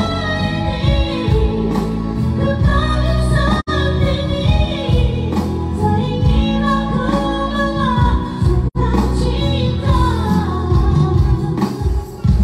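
A man singing into a handheld microphone, amplified, over electronic keyboard accompaniment with sustained low notes. The sound cuts out for an instant twice.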